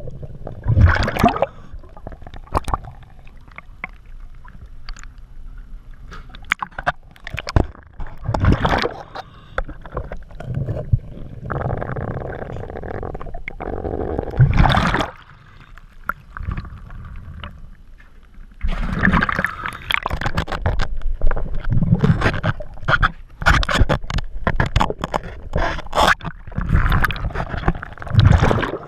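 Underwater sound of a diver on scuba: regulator breathing, with hissing inhalations and irregular gurgling bursts of exhaust bubbles, heard muffled through the water.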